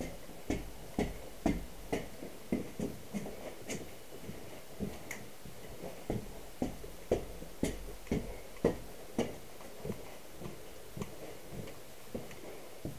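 Airsoft gun firing single shots in a steady series, about two sharp clicks a second.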